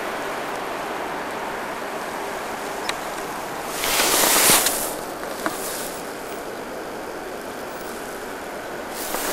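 Steady rushing noise of a ride over snow, with wind buffeting the microphone. The noise swells into a louder, hissing gust about four seconds in, and there are two faint ticks.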